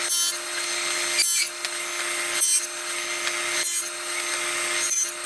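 Table saw with a 7/8-inch dado stack running steadily, cutting a row of box-joint notches in a board. The sound changes briefly five times, about a second and a quarter apart, one change for each pass of the notching.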